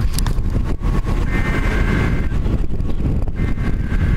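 Strong thunderstorm wind buffeting the microphone with driving rain: a steady, heavy rumble.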